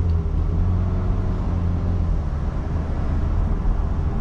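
Cabin sound of a 2024 Cadillac CT5 pulling away from a stop: a steady low engine hum, stronger in the first couple of seconds, under road and wind noise coming in through the open sunroof.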